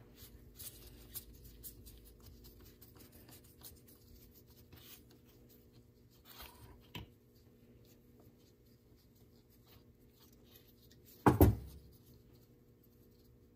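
Faint clicks and scrapes of a screwdriver working screws out of a small-engine carburetor body, with one sudden louder thump about eleven seconds in.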